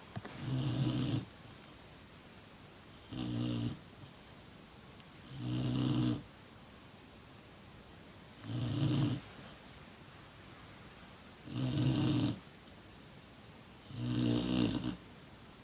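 Six-month-old black Labrador retriever snoring in its sleep: six separate snores, each under a second long, coming about every two and a half to three seconds.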